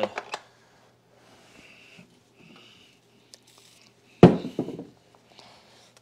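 Handling noise from a plastic canister-vacuum housing: soft rubbing as it is handled and wiped with a cloth, and one sharp knock about four seconds in, the loudest sound, with a brief ringing after it.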